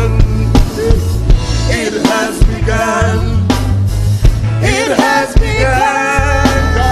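Music: a singing voice with vibrato over a band with drums and a strong bass line.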